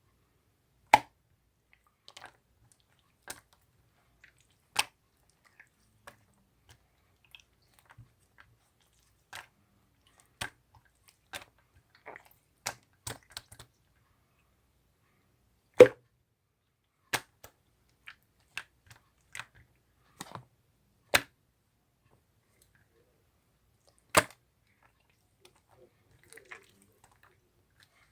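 Scattered sharp clicks at uneven intervals, with silence between them; three louder ones come about a second in, near the middle and a few seconds before the end.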